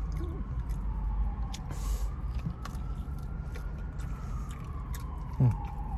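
Distant emergency-vehicle siren slowly wailing up and down over a steady low rumble of road traffic.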